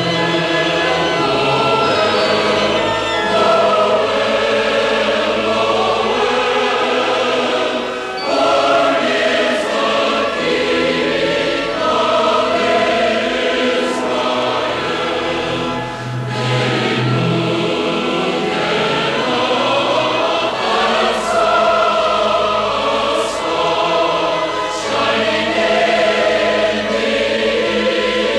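A choir singing, in held phrases of a few seconds each.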